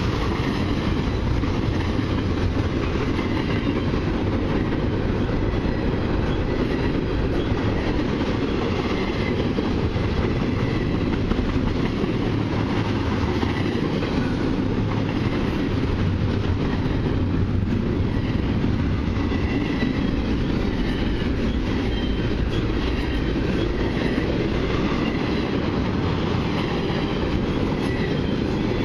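Canadian Pacific intermodal freight train's well cars, loaded with containers and trailers and then empty, rolling past: a steady rumble and rattle of steel wheels on the rails.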